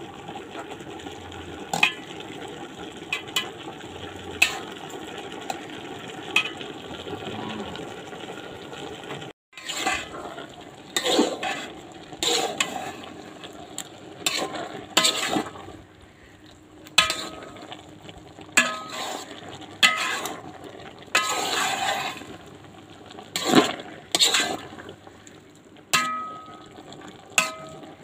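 Taro stolons frying in a pan with a steady sizzle and a few clicks. About a third of the way in, a spatula starts stirring and scraping against the pan in sharp strokes every second or so, over the sizzle.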